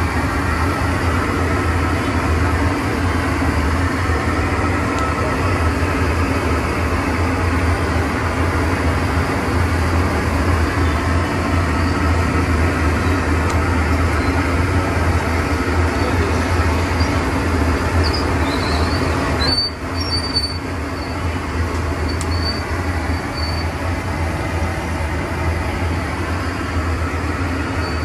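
Steady low rumble of vehicle noise, dropping briefly about two-thirds of the way through.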